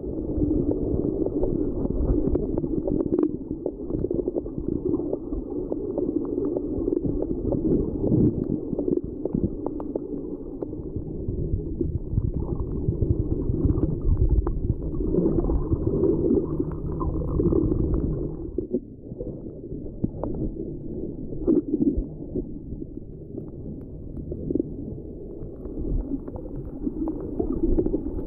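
Underwater noise picked up by a waterproof compact camera's built-in microphone held below the surface: a steady, muffled low rumble with gurgles and a few short knocks, easing briefly about two-thirds through.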